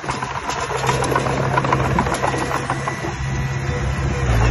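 Diesel engine of heavy construction equipment running steadily, with a clatter of sharp metallic clicks over it, getting louder near the end.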